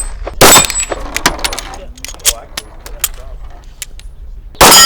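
Two handgun shots about four seconds apart, the second followed by the ring of a struck steel target. Faint metallic clinks in between.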